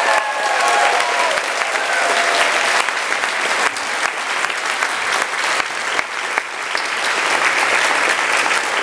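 Audience applauding, a dense steady clapping, with a few voices calling out over it in the first second or so.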